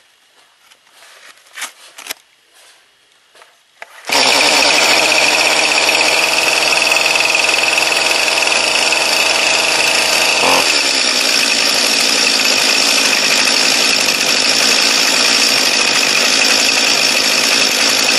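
Stihl MS 211 C-BE two-stroke chainsaw starting on half choke about four seconds in and running loud and steady at high revs. Its low rumble drops out about ten seconds in, while the engine keeps running loud.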